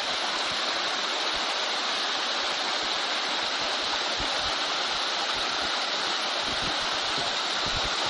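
A creek and a small waterfall pouring over limestone and tufa ledges: a steady rush of falling and tumbling water.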